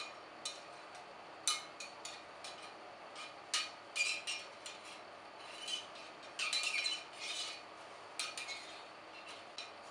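Cleaning rod and cloth patch rubbing and scraping along the inside of a Remington 870 shotgun barrel, in a string of short, uneven strokes.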